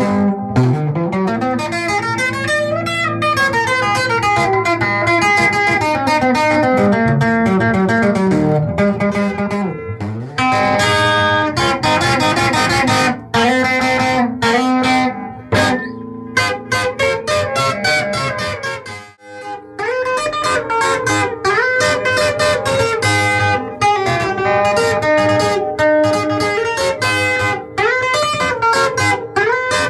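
Instrumental passage of Kamba band music led by plucked guitar playing quick note runs and slides, with a brief drop-out about two-thirds of the way through.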